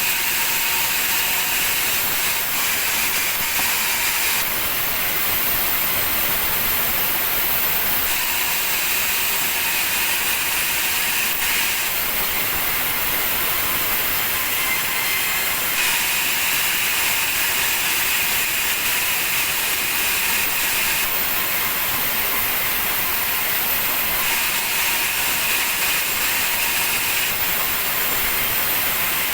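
Sawmill saw machinery running continuously while cutting meranti wood. The noise shifts back and forth every few seconds in a regular cycle, a high whine alternating with a brighter hiss, as passes through the timber repeat.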